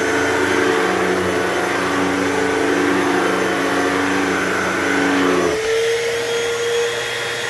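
Hoover Total Home Pet upright vacuum running steadily. About five and a half seconds in, its lower hum and rushing noise drop away, leaving the motor's steady whine.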